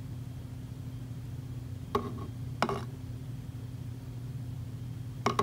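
Steady low electrical hum, with a few faint taps and rustles from a phone being held against a microscope eyepiece, about two seconds in and again near the end.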